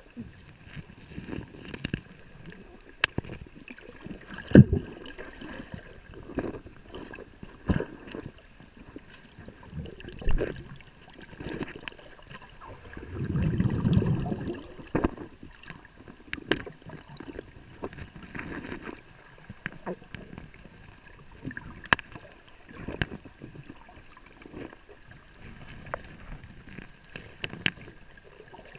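Creek water gurgling and sloshing, broken by scattered sharp knocks and clicks, the loudest about four and a half seconds in. A longer, low rush of water swells up near the middle.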